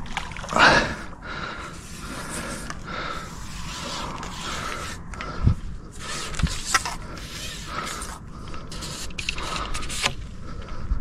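Fishing reel being worked while playing a hooked carp, its gears creaking and whirring in repeated turns about once a second, with two dull knocks midway.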